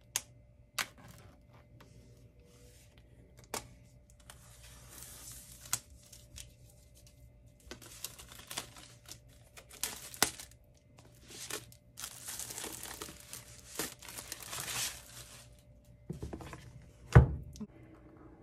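Plastic shrink wrap being torn off an iPad Air box and crinkled, in two longer stretches of tearing and rustling with scattered clicks and taps from handling the cardboard box. A loud low thud comes near the end.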